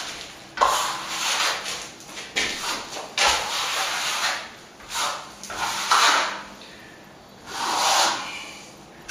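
Plasterer's trowel scraping over a drying set coat of corner cement in repeated uneven strokes, each up to about a second long: a dry polish with little water.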